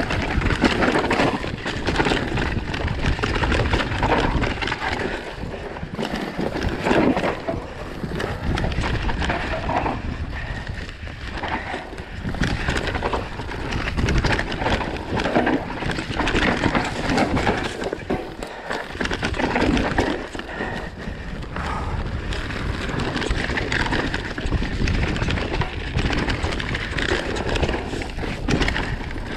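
Enduro mountain bike riding down a rough, rocky trail: a continuous clatter and rattle of the bike and tyres over rocks and dirt, with irregular knocks from hits on the terrain.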